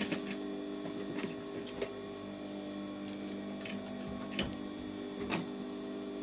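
Industrial sewing machine's motor humming steadily, with a few scattered clicks as the fabric is worked at the needle.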